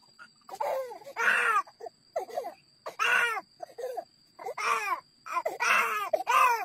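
A baby crying in repeated short cries, about one a second, each rising and falling in pitch.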